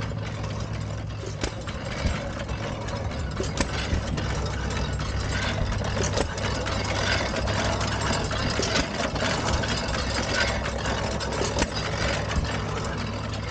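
Antique flywheel stationary gas engines running: a steady low hum with irregular sharp pops and knocks.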